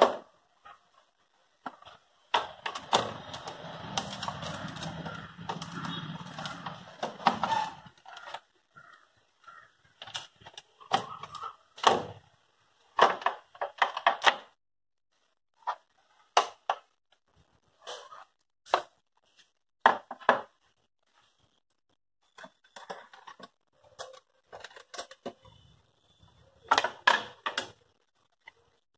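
Hands handling a Hikvision DVR's sheet-metal case. A steady scraping lasts from about two seconds in to about eight, then scattered knocks and clicks follow as the unit is turned over and worked on.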